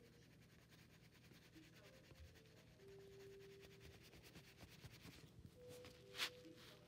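Near silence, with the faint scratching of a Cray-Pas oil pastel being rubbed over paper, and one short soft knock about six seconds in.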